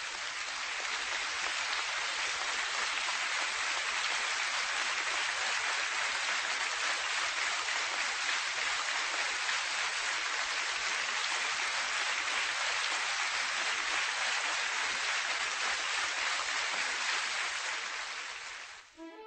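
Theatre audience applauding, a steady even clapping that swells in over the first couple of seconds and dies away just before the end.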